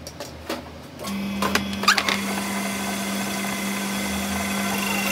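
Metal lathe switched on about a second in, then running with a steady hum. A few sharp metal knocks sound just after it starts.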